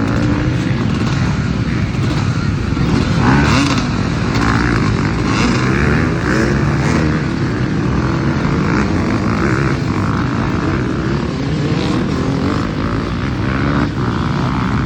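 Motorcycle engine sound, steady and unbroken, with a low pitch that wavers up and down and irregular higher rasps roughly once a second.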